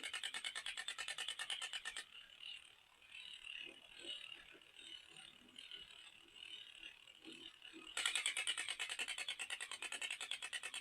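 A toy's mechanism clicking rapidly and evenly, about ten clicks a second, like a ratchet or gear train. It stops about two seconds in, leaving faint rustling and scraping, and starts again about eight seconds in.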